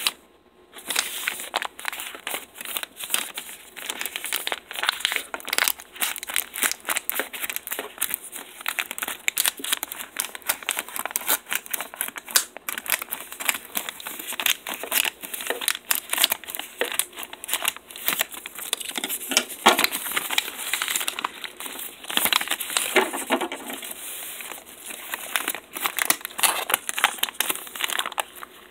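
Plastic poly mailer bag crinkling as it is handled, turned and pressed flat: a dense, irregular run of sharp crackles, after a short pause just at the start.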